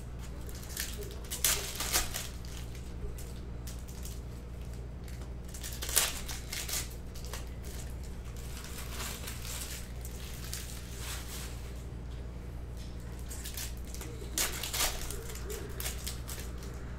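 Plastic wrappers of Panini Mosaic basketball card packs crinkling and tearing as they are opened and handled, in irregular bursts that are sharpest about two seconds and six seconds in, over a steady low hum.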